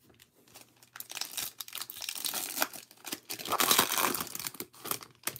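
Plastic wrapper of a 2022 Bowman baseball card pack crinkling as gloved hands tear it open. It is loudest about three and a half to four seconds in.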